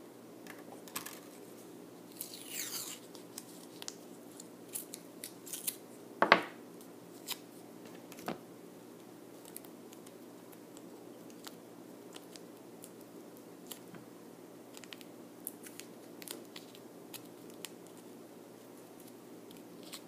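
Small handling sounds of masking tape being pulled, torn and pressed around a coil of thin coated magnet wire. There are scattered light clicks and crinkles, a short rasp about two and a half seconds in, and one sharp snap about six seconds in.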